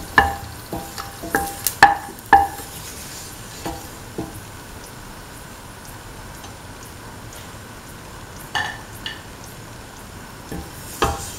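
Spatula knocking and scraping against a stainless steel pan, each knock ringing briefly, as fried cashew nuts are scooped out of hot ghee. A cluster of knocks comes in the first two and a half seconds and a few more near the end, over a faint steady sizzle.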